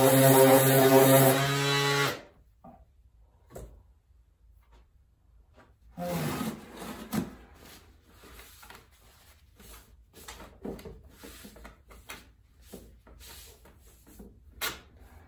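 Electric orbital sander running on fiberglass with a steady hum, switched off about two seconds in. After it, quiet rubbing and scattered light knocks of the sanded part being handled.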